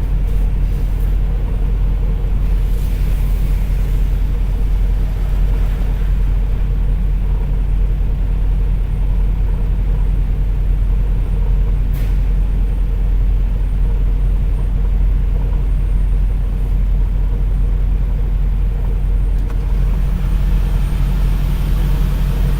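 Semi truck's Cummins ISX diesel engine idling, a steady low rumble with one brief click about halfway through.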